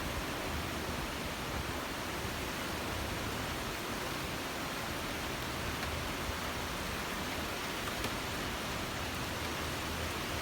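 Steady, even rushing noise of a storm, with no distinct events.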